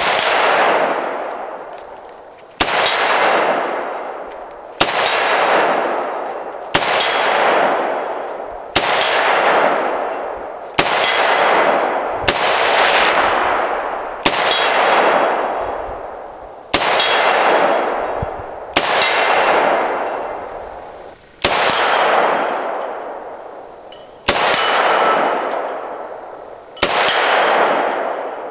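A DDI milled AK-47 in 7.62x39 fired semi-automatically, about one shot every two seconds, thirteen shots in all. Each shot is followed by a long ringing echo that dies away over about two seconds.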